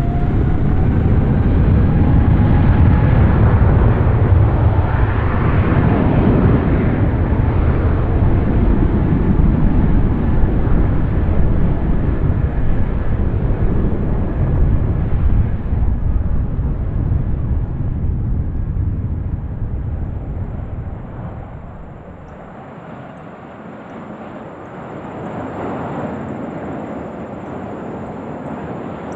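Jet airliner passing close by: a loud engine roar that peaks a few seconds in and slowly dies away, with a whine rising in pitch over the first few seconds. A second, fainter swell of jet noise comes near the end.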